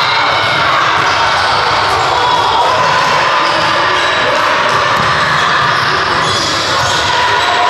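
Basketball game sounds in a large, echoing gym: a basketball bouncing on the hardwood court amid indistinct voices.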